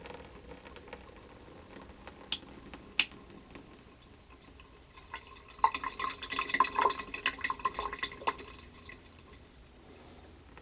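Water dripping and trickling from an open tap as the drained house plumbing empties its last water; separate drips, with a spell of quicker splashing drips about halfway through that then slows again.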